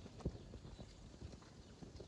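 Light, irregular knocks and taps of hard objects, the loudest about a quarter second in.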